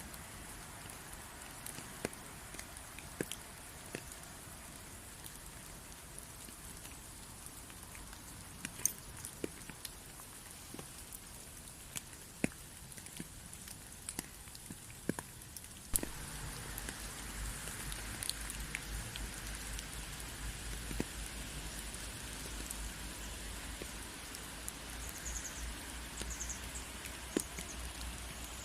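Rain falling, a soft steady hiss with scattered individual drops ticking sharply. About halfway through the rain gets louder and fuller, with a low rumble beneath it.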